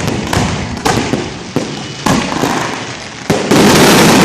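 Street fireworks going off: a series of sharp bangs about every half second, then about three seconds in a louder, continuous stretch of noise.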